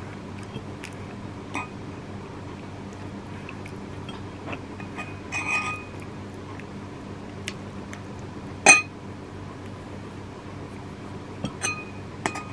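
Metal spoon clinking and scraping against a ceramic bowl several times, each clink ringing briefly, the loudest about two-thirds of the way through, over a steady low hum.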